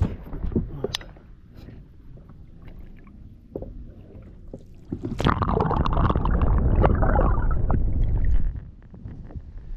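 Water sloshing and gurgling around a camera at the water's surface beside a boat hull, with a few small knocks at first. About five seconds in the rush of water over the microphone turns loud and dense, then drops off about three seconds later as the camera goes in and out of the water.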